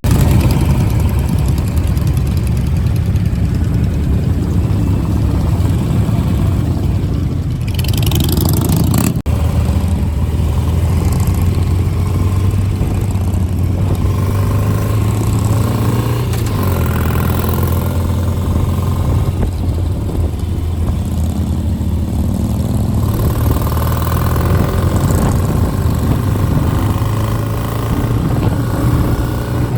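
Several motorcycle engines running at low speed, including the 2008 Ural Patrol sidecar rig's boxer twin, with low engine notes that rise and fall in pitch as the bikes rev and ease off. About eight seconds in there is a brief louder hiss.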